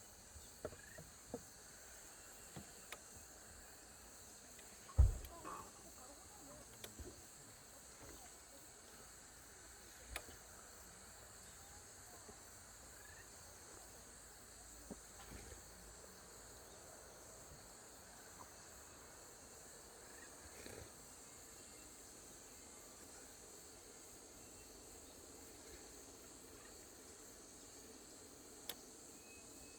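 Steady high-pitched chorus of insects, with scattered small clicks and knocks and one loud thump about five seconds in.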